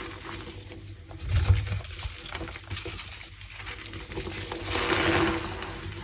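Reformed and pasted gym chalk blocks squeezed and crushed by hand close to the microphone, squeaking and crackling. There is a low thump about a second and a half in, and a longer crunch near the end.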